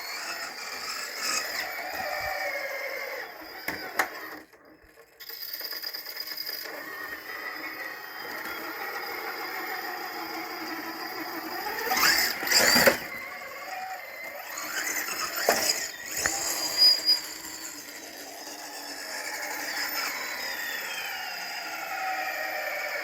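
Whine of an Axial Wraith RC crawler's Holmes Hobbies Revolver brushless motor and drivetrain on 6S, rising and falling in pitch with the throttle. There is a quick, loud rev up and back down about halfway through, and more bursts a few seconds later.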